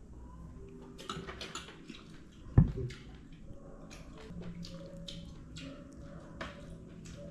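Kitchen food-preparation handling: scattered small clicks and light knocks, with one loud sharp thump about two and a half seconds in.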